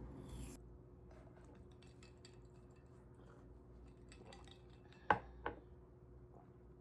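Faint room tone with scattered small clicks and taps, then two sharp clinks about five seconds in, half a second apart: small hard objects being handled.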